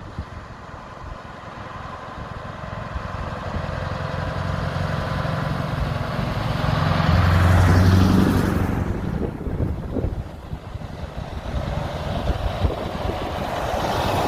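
A heavy truck's diesel engine drives past, growing louder to a peak about eight seconds in and then fading, as another vehicle approaches near the end.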